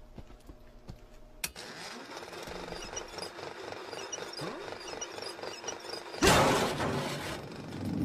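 Old reel-to-reel film projector starting up and running with a mechanical whirr, faint ticks at first. About six seconds in comes a loud rushing burst lasting about a second.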